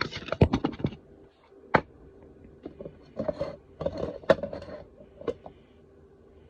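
Small hard objects clicking, clattering and scraping on a desk as tools and parts are handled: a quick run of clicks, a single sharp click near two seconds in, then more clicking and scraping, over a faint steady hum.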